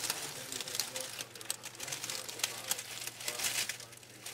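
Dry leaf litter rustling and crackling in quick, irregular clicks, busiest near the end, over a low steady hum.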